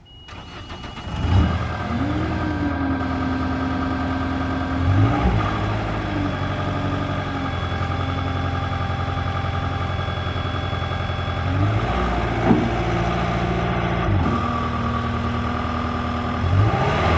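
CAT 226D skid steer's diesel engine running, its speed rising and falling several times, with short swells about a second in, around five seconds, near twelve seconds and again near the end.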